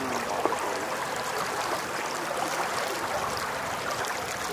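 Water rushing and gurgling along the hull of a moving dinghy, a steady noise.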